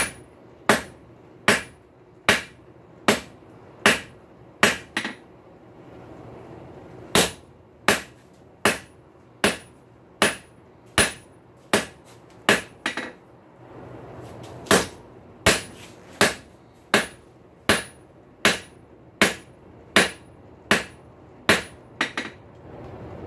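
Blacksmith's hand hammer striking a hot high-carbon steel bar on an anvil at a steady pace of a little more than one blow a second, each blow ringing briefly, while drawing out the square taper of a punch. The rhythm pauses twice for a moment, and a few blows are followed by a quick second tap.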